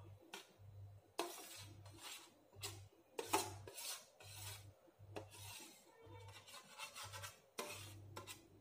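Metal spoon scraping the inside of a steel bowl in faint, irregular strokes about once a second, pushing thick rabri out of it.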